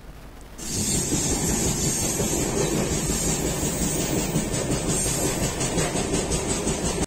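Running noise of a moving Indian Railways passenger train heard at an open coach doorway: steady wheel-on-rail rumble and rattle, starting abruptly about half a second in.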